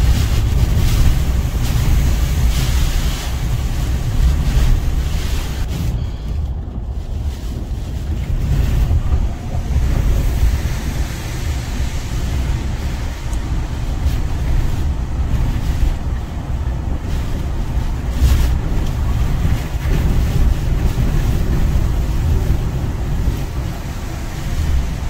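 Hurricane Helene's eyewall winds making a loud, continuous roar, with heavy wind buffeting on the microphone as gusts swell and ease.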